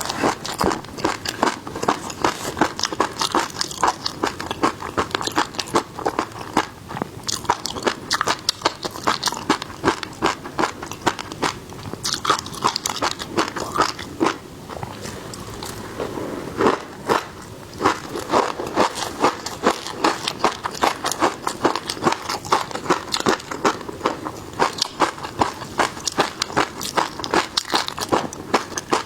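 Close-miked eating of seafood: a dense run of crunchy bites and chewing, with a short quieter lull about halfway through.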